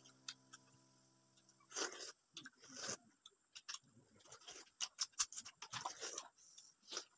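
People eating ripe mango slices: wet sucking, slurping and smacking mouth sounds in short irregular bursts.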